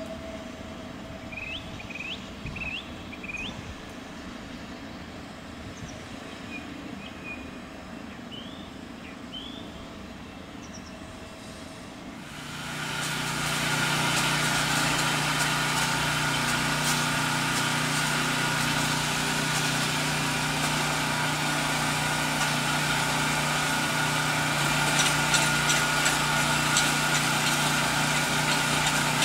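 A distant train rolling away, faint, with a few bird chirps. About twelve seconds in, this gives way to a louder, steady hum with a low drone and a higher whine from an approaching Pesa Gama electric locomotive, with a run of clicks near the end.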